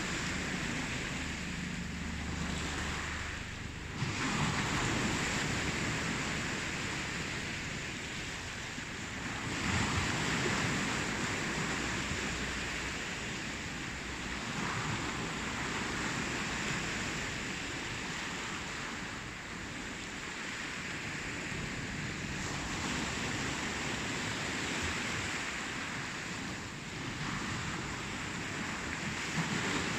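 Ocean surf: waves breaking and washing up, a continuous rush that swells and eases every few seconds, with stronger surges about four seconds and ten seconds in.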